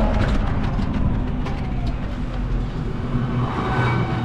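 Steady road rumble and travel noise heard on board a moving toto, a battery-powered e-rickshaw, as it drives along the road.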